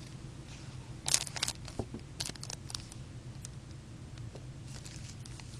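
Foil wrapper of a hockey card pack crinkling and tearing as it is opened, in two short bursts of rustling with a few light clicks.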